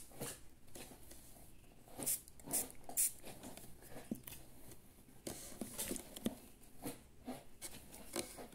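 Irregular short, scratchy rustles of damp hair being combed and worked through close to the microphone, the strongest few about two to three seconds in.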